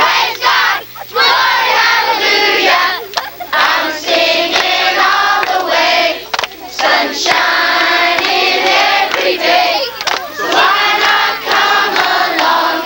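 A group of children and women singing loudly together, unaccompanied, in short sung phrases with brief breaks.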